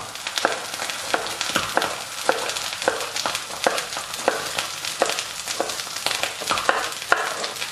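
Chef's knife cutting a red bell pepper into strips on a plastic cutting board, sharp strokes about twice a second. Underneath is the steady sizzle of pork loin steak frying in a hot pan.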